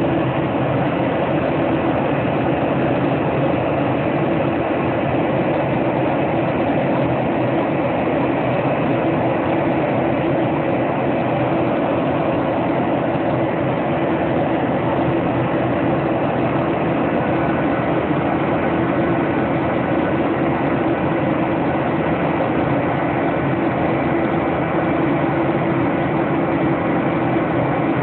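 Steady drone of a jet airliner in flight, heard inside the cabin: engine and airflow noise holding level throughout, with a few faint steady tones in it.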